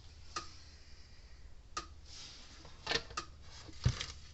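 Sharp clicks repeating about every one and a half seconds, with a few irregular small clicks and a low thump near the end from handling an opened electric fence energizer.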